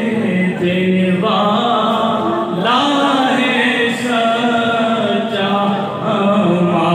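Unaccompanied devotional chanting of a naat, sung in long held notes that glide between pitches with short breaks for breath.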